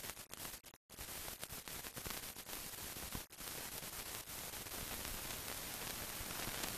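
Steady hiss with scattered crackles and clicks: surface noise of an old film soundtrack that carries no recorded sound. It cuts in and out during the first second, then runs steadily.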